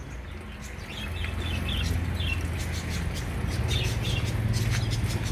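Water from a hose pipe pouring into a partly filled aquarium, the splashing growing louder about a second in. Birds chirp briefly a few times in the background.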